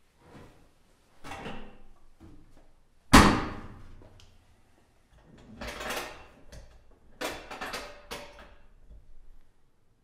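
Clothes dryer being loaded and readied: rustling and knocking from handling the drum, door and clothes, with one loud sharp bang about three seconds in and several shorter knocks and clicks after it.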